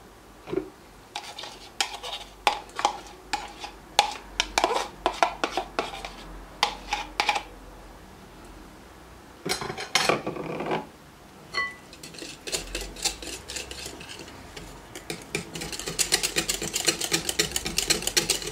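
Wire hand whisk clinking against a glass mixing bowl as melted margarine is beaten into waffle batter: scattered taps at first, a short ringing clink about halfway, then fast steady whisking over the last several seconds.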